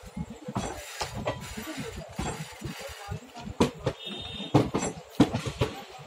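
ICF passenger coaches rolling slowly past, their wheels knocking irregularly over rail joints and points, with the loudest clacks a little past the middle. A brief high tone sounds about four seconds in.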